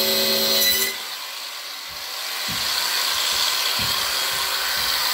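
Makita grinder cutting recesses into wood for raised-bar brackets. Its motor runs with a steady hum and cuts off about a second in, followed by a rough hissing scrape with a few dull knocks.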